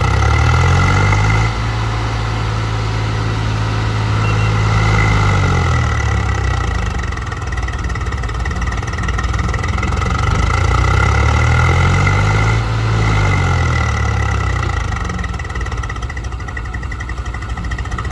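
Diesel engine of heavy machinery running under load, its revs rising and falling back twice, with a steady high whine over it.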